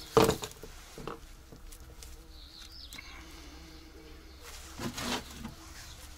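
Hand work on a KamAZ truck's middle-axle drain plug: one sharp metal clank at the start, then quiet fiddling as the plug is turned out by hand, with a second, softer noise about five seconds in. Pigeons coo faintly in the background.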